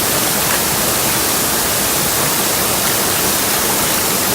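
Steady rush of water from a small waterfall pouring into a pool.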